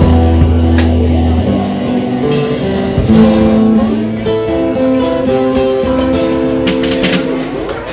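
Live electric guitar playing an instrumental passage of sustained notes that change in pitch, over a held low note in the first second and a half. The playing stops just before the end.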